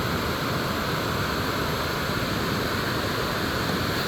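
Steady rushing of water pouring over a small dam spillway.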